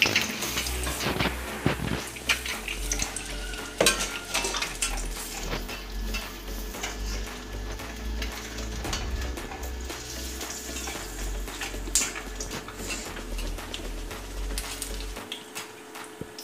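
Egg bread pakoda deep-frying in hot oil in a kadai, a steady sizzle, while a slotted metal spatula clinks and scrapes against the pan as the pakoda is turned, with a few sharp clicks.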